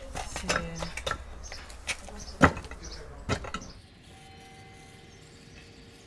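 Irregular knocks and thuds from work on a wooden post, with one louder bang about two and a half seconds in. After about four seconds they stop, leaving a quiet outdoor background with a faint steady tone.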